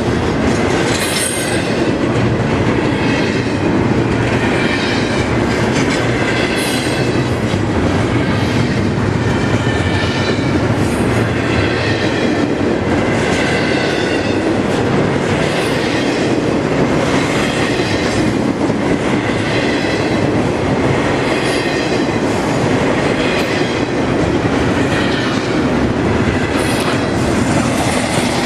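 CSX intermodal container train rolling past: a steady rumble of wheels on rail, with a high screech from the wheels coming back every second or two as the cars go by.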